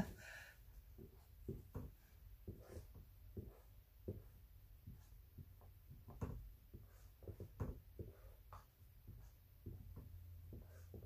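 Dry-erase marker writing on a whiteboard: faint, irregular short strokes and ticks as letters are drawn.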